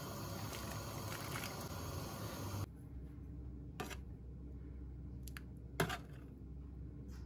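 Steady hiss of a pot of soup simmering on a gas burner, cut off abruptly between two and three seconds in. After it, a quieter stretch with a few light clicks of a metal spoon against a copper serving bowl, the loudest a little after halfway.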